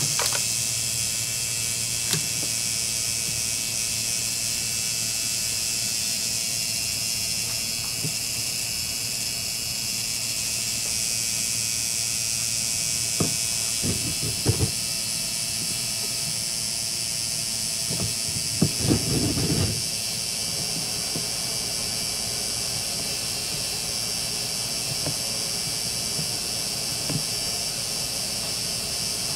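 Homemade paper-clip motor, a magnet-wire coil spinning at about 6800 RPM on paper-clip supports over a neodymium magnet, running steadily with a high hiss and a low hum. A few brief knocks come midway.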